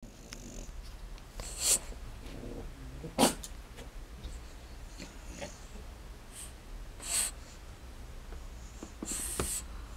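A French Bulldog snorting and huffing through its short nose in a few short, sharp bursts, a second or two apart.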